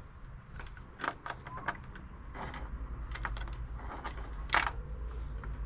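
Metal motorcycle parts and hand tools clinking and knocking as a Norton's primary drive is put back together, with one sharper knock about four and a half seconds in.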